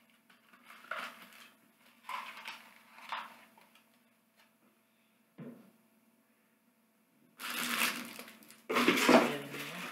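Cardboard and plastic packaging being handled: a few soft scrapes and crinkles, a single click about five seconds in, then loud rustling and crunching near the end as a boxed item is pulled out of the shipping box.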